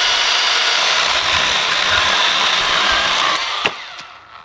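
Milwaukee M12 FUEL Hatchet 6-inch cordless brushless pruning saw running at full speed, its chain cutting steadily through a thick log without binding. About three and a half seconds in the cut finishes, there is a single knock, and the saw winds down.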